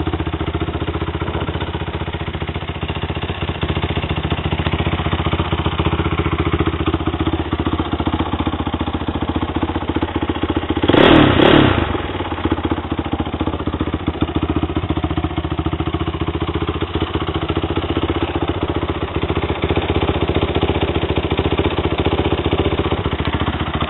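Honda TRX450R quad's single-cylinder four-stroke engine, bored to 501cc and fitted with a DMC full exhaust, idling steadily, with one quick throttle blip about halfway through that rises and falls within about a second.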